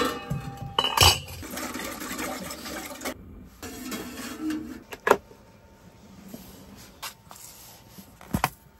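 Stainless steel pot and lid clinking and knocking on a gas hob, with two stretches of steady hiss in the first half and a few sharper knocks later.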